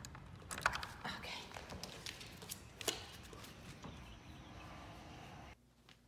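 A few sharp clicks and knocks as the bottom lock of a sliding glass door is released by hand and the door is worked open.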